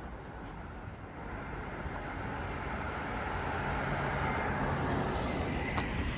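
A motor vehicle passing along the street, its noise building over several seconds, with a steady low engine hum in the middle.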